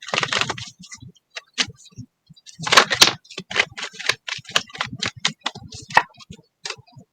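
Tarot cards being handled and shuffled: a run of irregular sharp clicks, flicks and snaps of card stock, with two denser rustling flurries, one at the start and one about two and a half seconds in.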